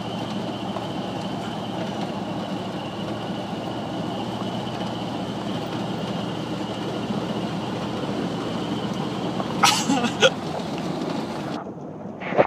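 A truck driving along a gravel road, heard from inside the cab: a steady rumble of engine and tyres on gravel. A few short sharp sounds come about ten seconds in.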